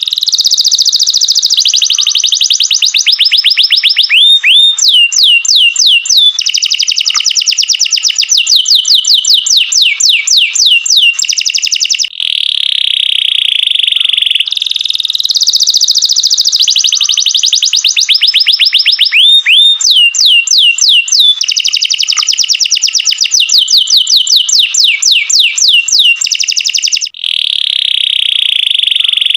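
Canary singing a loud, continuous song of fast trills: runs of rapidly repeated notes that change type every second or two, with a few rising sweeps. There are short breaks about twelve seconds in and near the end, and after the first break the same sequence of trills starts over.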